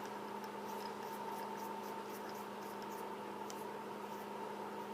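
Faint light ticks and scrapes of small metal mod parts being screwed together by hand, over a steady electrical hum.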